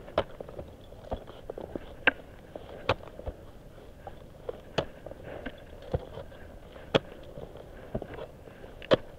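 Technical ice axes and crampons striking into hard snow and ice during a steep gully climb, giving sharp knocks roughly once a second.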